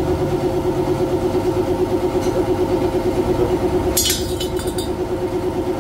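A motor drones steadily with a fast pulsing beat. About four seconds in, a brief scraping hiss sounds as a stainless muffler end cap is pushed onto the muffler body to test its fit.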